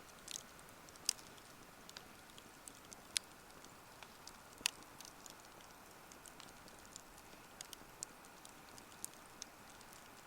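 Wood fire crackling: irregular sharp pops and snaps over a soft hiss, the loudest snaps about a second, three seconds and four and a half seconds in.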